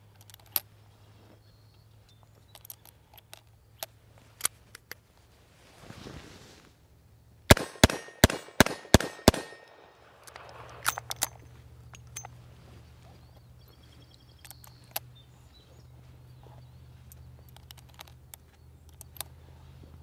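Six rapid shots from a SAR 38 .357 Magnum revolver, evenly spaced about a third of a second apart, emptying its six-shot cylinder. Scattered light clicks come before and after.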